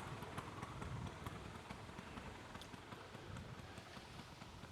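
Faint steady background noise with a few small ticks.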